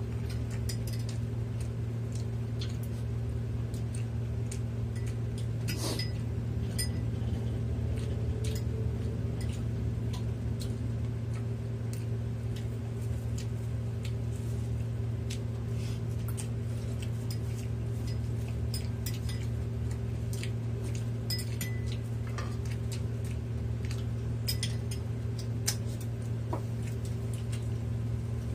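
Spoon and dishes clinking lightly now and then during a meal of soup, over a steady low hum.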